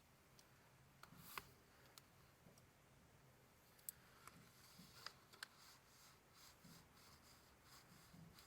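Faint handling noises of paper items: scattered light clicks, a few close together, and soft paper rustling through the second half.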